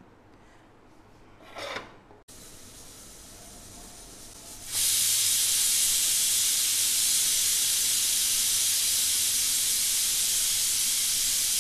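Aluminium pressure cooker whistling: steam escaping past the weight valve, first a faint hiss, then about five seconds in a loud, steady hiss as the cooker reaches full pressure.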